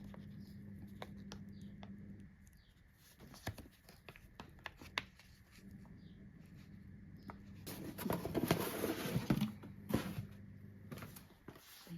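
Packaging being handled and opened: scattered small clicks and rustles, then a louder stretch of rustling and tearing about eight seconds in.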